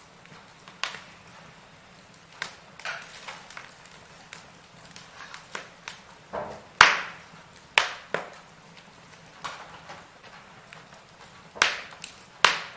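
Wood fire in a fireplace crackling: irregular sharp pops and snaps over a soft steady hiss, the loudest pops about seven seconds in and twice near the end.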